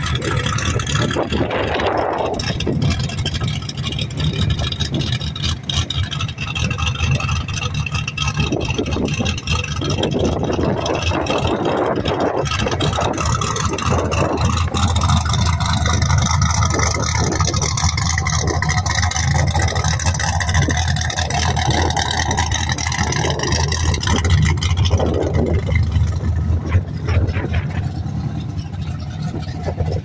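Stock race car's engine running at idle, a steady deep low note that grows louder from about halfway in and drops back near the end.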